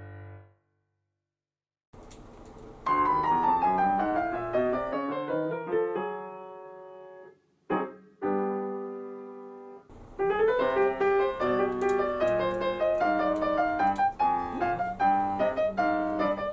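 Piano music: after a brief silence, a falling run of notes and a few fading chords, then a lively melody from about ten seconds in.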